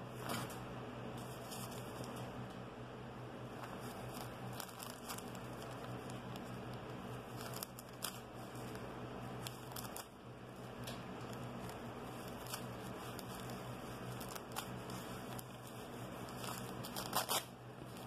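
A teething kitten tearing and crinkling newspaper with its teeth and claws: scattered paper crackles and short rips, the loudest cluster near the end, over a steady low hum.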